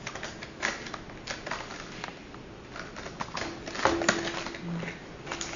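Clear plastic retail box being handled and opened by hand: irregular clicks and crackles of stiff plastic, with the sharpest clicks a little under four seconds in.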